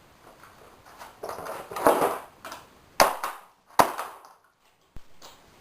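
A few sharp knocks and clatter of hard parts, about four separate hits roughly a second apart, with a rustling, scraping stretch around the second one, as the vacuum cleaner is handled and banged about.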